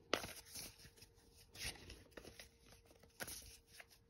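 A deck of tarot cards being handled and shuffled in the hand: soft, scattered rustles and light card clicks, a few of them sharper than the rest.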